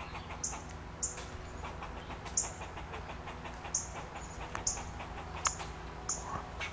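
A squirrel giving short, sharp alarm calls about once every second, unevenly spaced and sometimes in pairs: it is agitated by a nearby cat.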